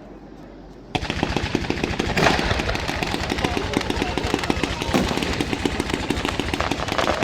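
Fireworks: after a quiet first second, a dense, rapid crackling of many small reports starts suddenly and keeps going, with two louder bangs about two and five seconds in.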